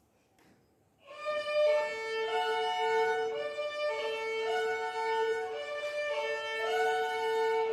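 Violin duet: two violins start playing about a second in, one holding a long low note while the other moves through a melody above it.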